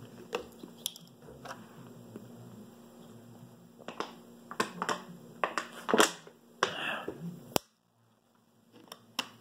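Scattered small clicks and crinkles of a thin plastic water bottle being picked up and handled. The sound drops out to dead silence for about a second near the end.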